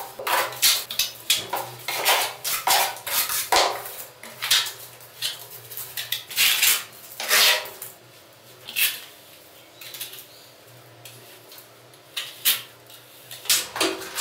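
Steel plastering trowel scraping across wet gypsum plaster on a wall in repeated short strokes, about one or two a second. The strokes thin out past the middle and pick up again near the end.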